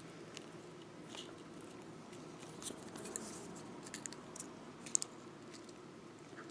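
Faint, scattered small clicks and ticks of fine beading wire being twisted by hand and with round-nose pliers, the sharpest about five seconds in.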